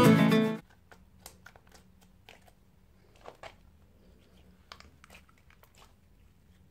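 Acoustic guitar music stops suddenly about half a second in. After that come soft, scattered sticky clicks and crackles of silver glitter slime being stretched and folded by hand.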